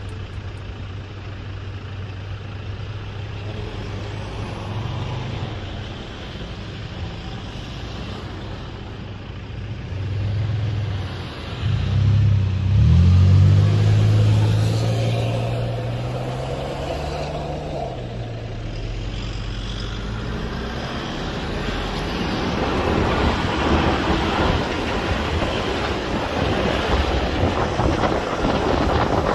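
Off-road 4x4 engines running at low revs, with one engine revving up and holding higher revs for a few seconds about twelve seconds in, then a steady rough rumble of driving over beach sand, with wind on the microphone.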